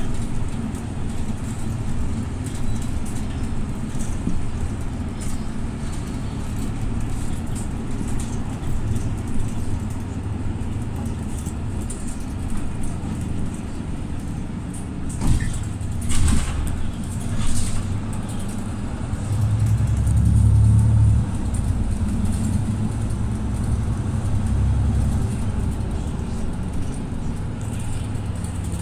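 Mercedes-Benz Citaro city bus heard from inside while driving: a steady engine drone with road noise. Partway through come a few sharp knocks, and about two-thirds through the engine grows louder for a couple of seconds as it pulls harder.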